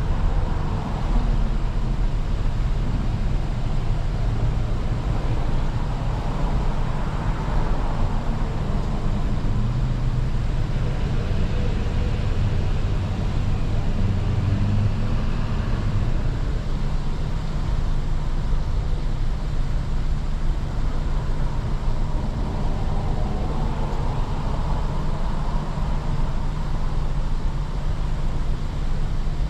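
Car engine running with a steady low rumble, heard from inside the car's cabin while it waits or creeps forward in a drive-thru lane.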